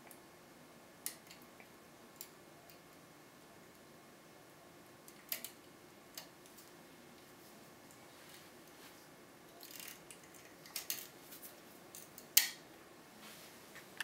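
Scattered small metallic clicks and scrapes from picks and a tension tool working the pins of a Medeco Original cylinder lock, with a short run of clicks a little after halfway and one sharp, louder click near the end.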